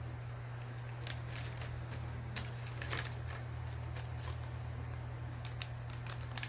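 Scattered light clicks and rustles of small objects being handled, over a steady low hum.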